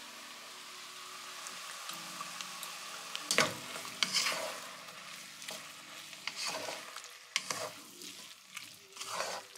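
Prawn fried rice stir-frying in a non-stick wok: a steady sizzle, with a wooden spatula scraping and tossing the rice and vegetables. Several louder scrapes and knocks come from about three seconds in.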